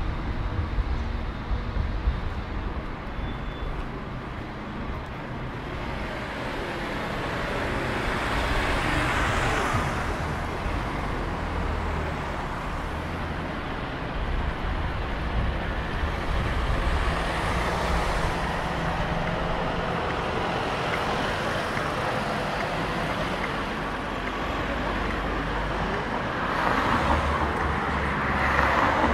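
City street traffic: a steady rumble of road vehicles, with louder vehicles passing about nine seconds in and again near the end.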